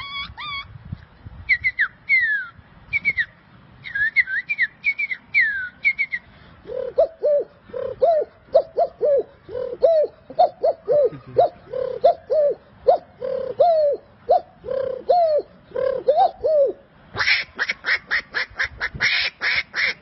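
A sequence of bird calls. First come short, high, falling chirps. Then a long run of lower calls, about two a second, each rising and falling. Near the end a rapid series of harsher calls begins.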